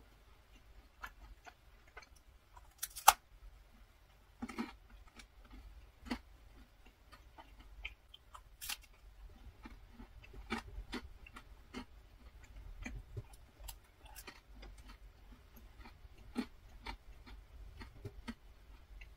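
Close-up chewing of a macaron: the crisp shell crunching, with scattered wet clicking mouth sounds and one sharper crunch about three seconds in.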